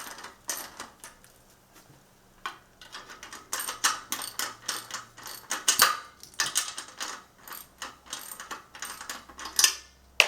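Ratcheting socket wrench clicking in short runs as a bicycle's front axle nut is tightened down.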